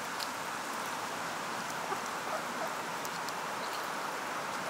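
Steady outdoor background hiss, with a few faint clicks and ticks scattered through it.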